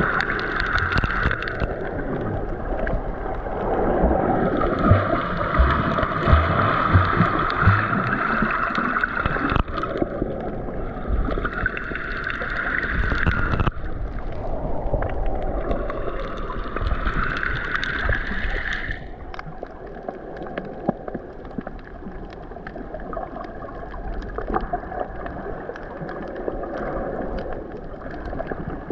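Muffled underwater water noise from a submerged action camera: a steady low rumble and bubbling, with swells of brighter rushing sound every few seconds that stop about two-thirds of the way in, leaving a quieter, even wash.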